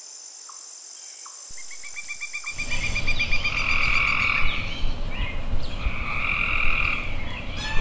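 A chorus of frogs calling: a high thin trill at first, joined by a lower pulsed trill, then louder repeated croaking calls about every two seconds. The chorus grows louder over the first few seconds.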